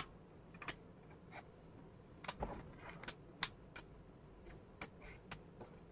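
Small wooden jigsaw pieces clicking and tapping against each other and the table as they are picked up, slid and fitted, about a dozen light irregular clicks.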